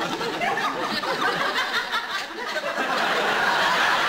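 Studio audience laughing, a dense crowd laugh that holds steady.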